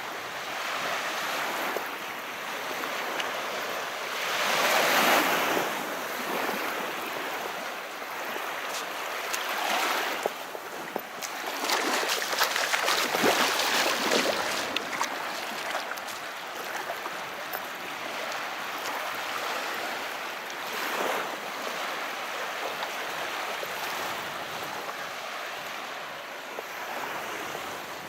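Calm sea surf: waves washing ashore in a steady hiss, swelling louder as bigger waves break, about five seconds in, around ten, from about twelve to fourteen seconds, and near twenty-one seconds, with faint fizzing crackle.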